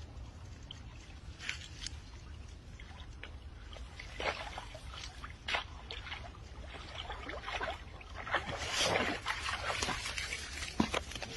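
Water sloshing and splashing in irregular bursts, growing busier in the second half.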